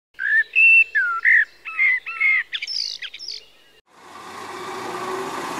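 A bird's song: a series of about eight clear whistled chirps, each bending up or down in pitch, ending just before four seconds in. Then a steady rush of road traffic noise fades in.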